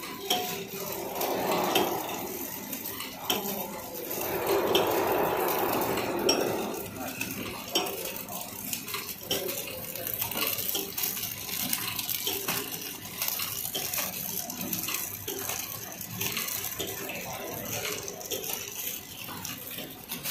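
Pillow-type fruit packaging machine running: its roller conveyor and chain feeder clatter with many small clicks and knocks, and a louder noisy swell lasts about two seconds starting around four seconds in.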